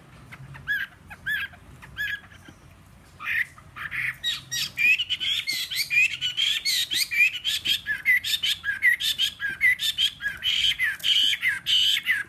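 Caged Chinese hwamei (melodious laughingthrush) singing: a few short separate calls, then from about three seconds in a fast, unbroken run of loud notes that rise and fall, stopping suddenly near the end. The owner says the bird's voice is slightly hoarse.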